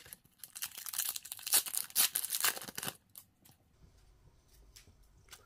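A hockey trading-card pack's wrapper being torn open: a dense run of crinkling that stops about three seconds in, followed by a few faint taps as the stack of cards is handled.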